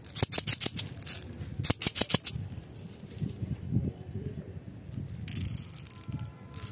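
Small hard candy balls rattling inside a plastic candy tube, shaken in two quick bursts of clicks, then soft plastic handling and a brief hiss as the candies pour out into a palm near the end.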